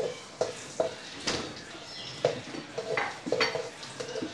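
Ginger and garlic sizzling in hot sesame oil in a wok, while a slotted spatula stirs and knocks against the pan about twice a second.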